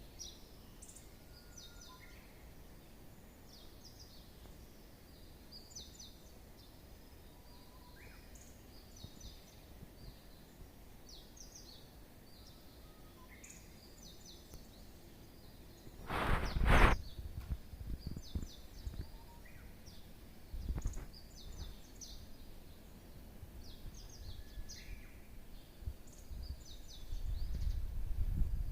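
Small bird calling over and over, short groups of high chirps every second or two. Partway through, a loud low rumble on the microphone lasts about a second, and low rumbling builds again near the end.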